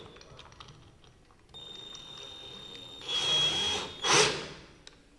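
Cordless drill motor whirring in short runs with a high whine, the keyless chuck held by hand around a screwdriver bit. It runs faintly and steadily at first, louder about three seconds in, and loudest in a brief whir just after four seconds.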